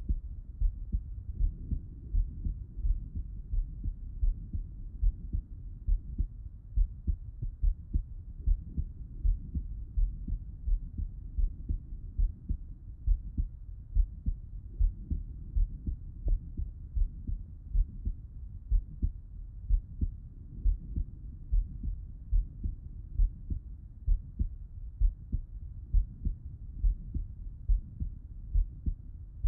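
A man's heart heard through a Littmann stethoscope with him lying on his left side: a slow, steady lub-dub heartbeat of dull low thuds, about one beat a second.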